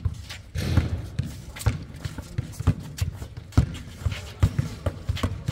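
Basketball bouncing on an outdoor hard court together with players' footsteps: a series of irregular thuds, the loudest about three and a half seconds in.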